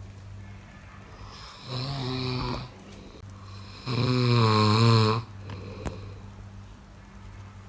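A person snoring: two snores, the second longer and louder with a wavering pitch.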